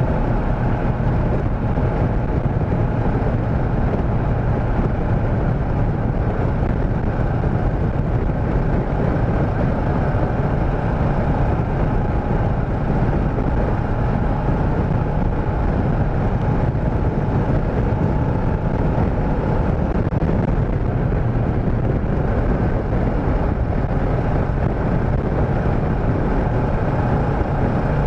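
Motorcycle running at a steady cruising speed, with wind rushing over the microphone.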